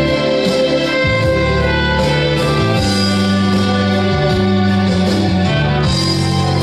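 Instrumental music from a karaoke backing track of an enka ballad: a passage between sung lines, with held notes over a bass line that moves from chord to chord.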